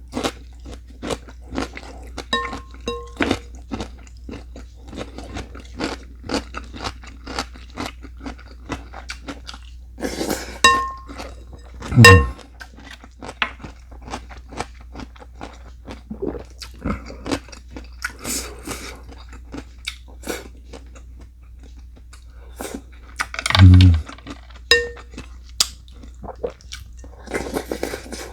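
Close-up chewing and crunching of food, typical of biting into kkakdugi (cubed radish kimchi), with a scatter of short clicks and a few ringing clinks of utensils against dishes. There are two louder dull thumps, one about twelve seconds in and one near the end.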